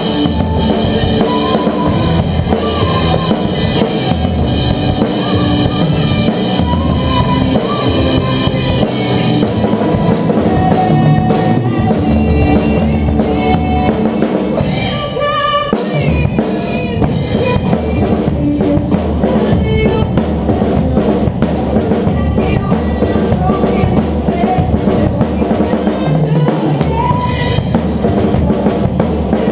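Mapex drum kit played hard along with a recorded backing track, with bass drum, snare and cymbal hits over a pitched band arrangement. From about a third of the way in the cymbal strokes come thicker and faster, and about halfway through the music thins out briefly before the drums come back in.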